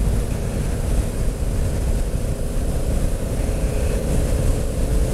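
Wind rushing and buffeting over the camera microphone of a motorcycle riding at road speed. Under it is the steady drone of the Honda Africa Twin's engine.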